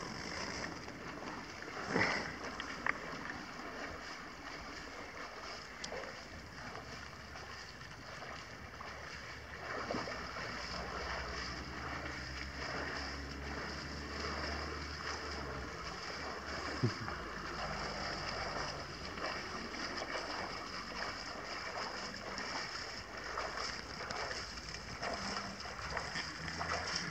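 Steady rush of a fast-flowing river, with wind buffeting the microphone and a few sharp knocks, one about two seconds in and one near the middle.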